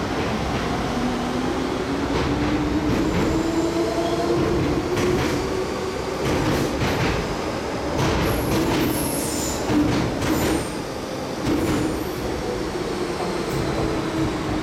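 MTR Kwun Tong Line M-Train running through a station platform at speed without stopping. A steady rumble runs under a whine that glides up and down in pitch, with scattered wheel clicks and brief high wheel squeals about eight to ten seconds in.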